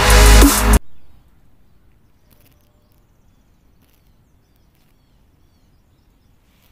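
Electronic drum-and-bass music with a heavy beat that cuts off abruptly less than a second in, followed by faint, steady background noise.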